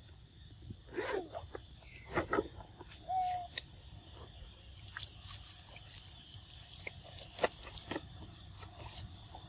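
Macaque troop in the open: a few short, soft calls and squeaks, the loudest about two seconds in, with a brief steady note soon after and scattered light ticks and rustles, over a steady insect drone.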